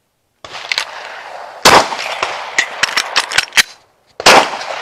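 Two pistol shots about two and a half seconds apart, each with a long echo. Between them come quick metallic clicks and clatter from a fast magazine reload.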